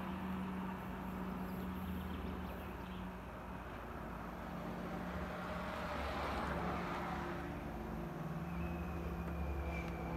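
Steady low hum of an engine running, with a faint outdoor background.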